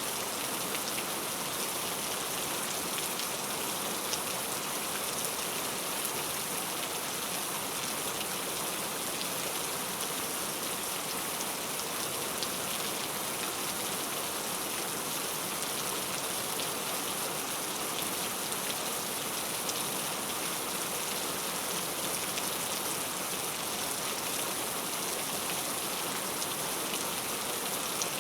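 Steady heavy rain falling on a surface, an even hiss with scattered faint drop ticks.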